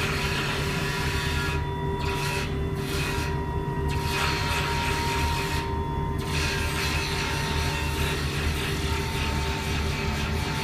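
Internal pipeline welding machine running the root pass inside a steel pipe: a steady low machine drone with a thin whistle, under a high hiss of the welding arc that cuts out briefly a few times in the first six seconds.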